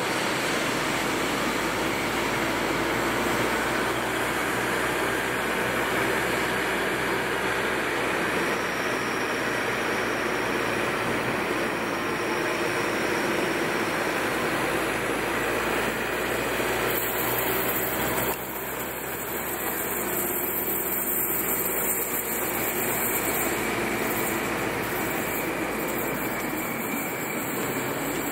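Steady running noise of a car driving alongside a steam train, heard from inside the car. The loudness drops slightly about eighteen seconds in.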